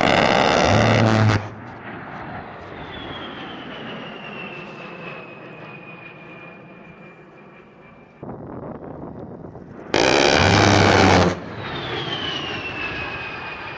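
A-10 Warthog's GAU-8 Avenger 30 mm Gatling cannon firing two bursts of about a second and a half each, a low buzzing "BRRRT", about ten seconds apart. Between and after the bursts the jet's turbofan engines whine, falling in pitch as the aircraft passes.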